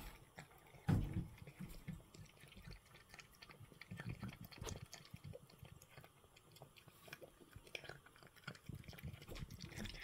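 Cat eating flaked fish from a ceramic bowl: soft, irregular wet chewing and small mouth clicks, with one louder low knock about a second in.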